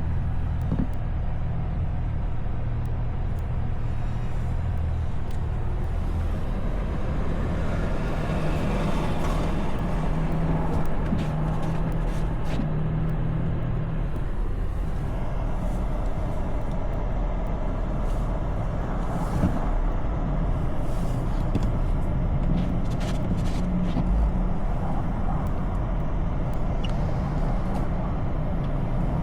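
Motor vehicle running steadily: a low engine hum with road noise and scattered clicks and rattles.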